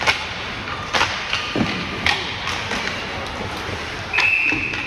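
Ice hockey play: sharp knocks of sticks and puck, several in the first two seconds. Then one steady high whistle blast of under a second near the end.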